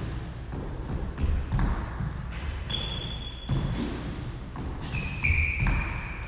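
Court shoes thudding and squeaking on a hardwood squash court floor as a player steps, lunges and pushes off during footwork drills. There is a short high squeak about three seconds in and a louder, longer squeak near the end.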